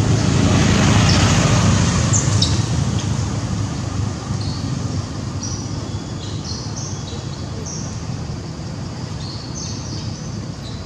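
Short high bird chirps scattered throughout over a steady low rumble, which is loudest in the first two seconds and then fades.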